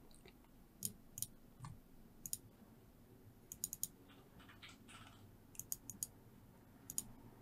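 Faint sharp clicks from working a computer while saving a file: single clicks and quick runs of two or three, spread over the few seconds.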